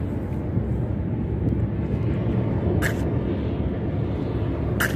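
Steady low wind noise buffeting the microphone, with two short hissing bursts, about three seconds in and near the end.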